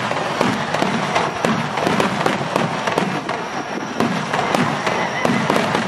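Aerial firework shells bursting in a rapid, continuous barrage, about three or four sharp bangs a second over a steady din of explosions.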